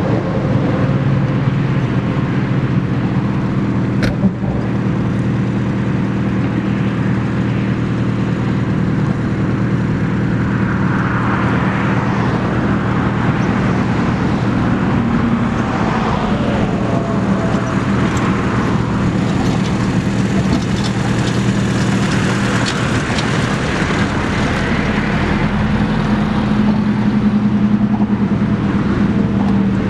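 Engines of off-road 4x4s, a Lada Niva and then a Suzuki Jimny, running at low, steady revs as they creep down a steep dirt slope. A rougher hiss swells and fades through the middle, and there is one sharp click about four seconds in.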